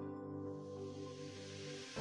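Background music fading out the end of a documentary: soft sustained chords, with an airy hiss swelling in from about half a second in and a new chord entering near the end.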